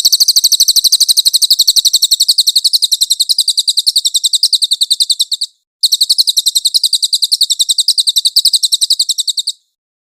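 Cililin bird song from a masteran (songbird-tutoring) recording: a loud, very high-pitched trill of rapid chirps, about a dozen a second. It comes in two long runs, broken by a brief gap about five and a half seconds in.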